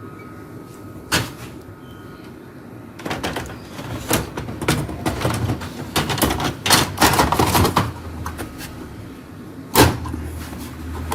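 Plastic parts of a laser printer drum unit being handled and worked on: a sharp click about a second in, a stretch of rattling, scraping and clicking in the middle, and another sharp snap near the end.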